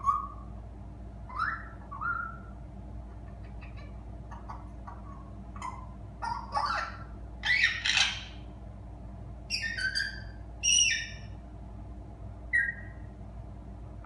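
African grey parrot chirping: short whistles, squeaks and clicks at irregular intervals, some rising or falling in pitch, with the loudest calls in a cluster past the middle.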